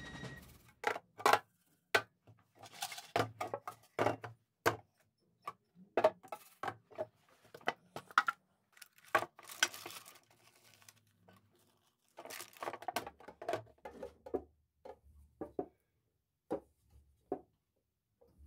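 Metal tea tins handled and set down on a wooden board: a string of separate clicks and knocks from tin lids and cans, with a couple of short bursts of foil crinkling.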